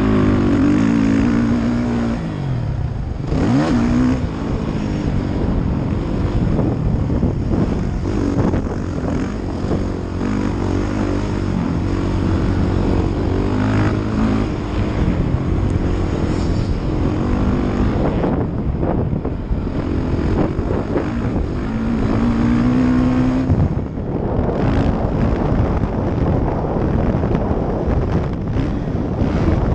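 2016 Suzuki RM-Z450 dirt bike's single-cylinder four-stroke engine revving hard and changing pitch as it is ridden around a motocross track, heard from the rider's helmet. The throttle closes and the revs drop briefly about three seconds in and again near the end, then it picks back up.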